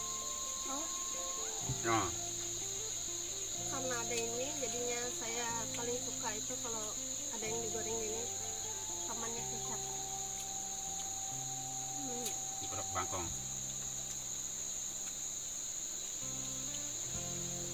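Steady high-pitched chirring of forest insects, with soft melodic background music playing underneath.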